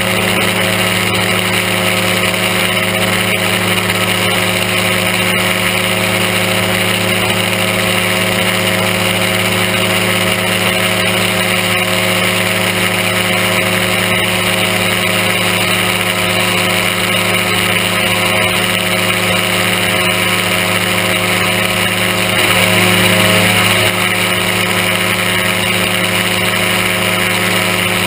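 Aerochute powered-parachute microlight's engine and propeller running steadily in cruise, heard close up from the pilot's seat. It gets briefly louder and a little higher about two-thirds of the way through, then settles back.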